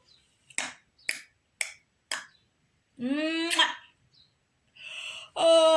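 A person demonstrating body sounds: four sharp clicks about half a second apart, then a short voiced sound rising in pitch, a brief hiss, and a long vocal tone beginning near the end that dips and rises in pitch.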